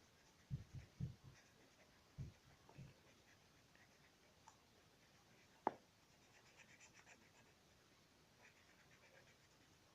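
Faint scratching of a drawing tool shading in on squared paper, with several soft low knocks in the first three seconds and one sharp click a little before six seconds in.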